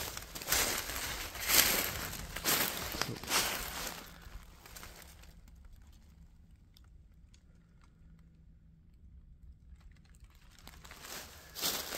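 Footsteps crunching through dry fallen leaves, about one step a second, stopping after about four seconds; several quieter seconds with a few faint ticks follow before the steps start again near the end.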